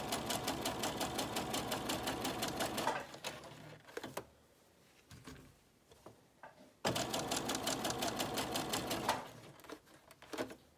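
Electric domestic sewing machine stitching a seam through a zippered fabric lining, with a fast, even run of stitches. It sews for about three seconds, stops for nearly four while the fabric is handled, then sews again for about two seconds.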